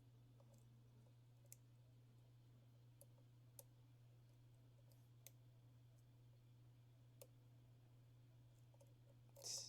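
Faint, scattered clicks of a lock pick working the pins of an Assa Desmo cam lock, about half a dozen spread over several seconds, with a brief louder noise near the end.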